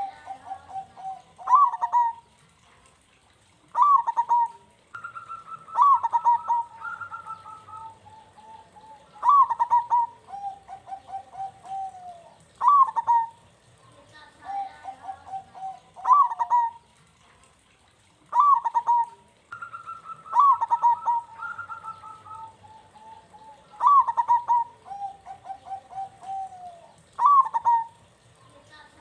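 Zebra dove (perkutut) singing. It repeats its cooing phrase about every three to four seconds. Each phrase is a loud opening coo followed by a rapid string of softer, trilled coos that slide slightly down in pitch.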